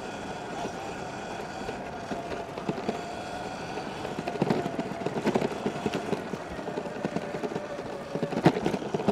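Sur Ron X electric dirt bike's motor whining steadily at cruising speed, with wind and tyre rumble over rough, cracked pavement. Several sharp knocks from bumps come in the second half, the loudest near the end, as the whine drops slightly in pitch.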